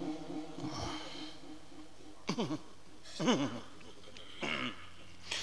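Three short, faint voice calls, each falling in pitch, about a second apart, typical of listeners calling out in praise between verses of a Quran recitation. A brief breathy hiss comes about a second in.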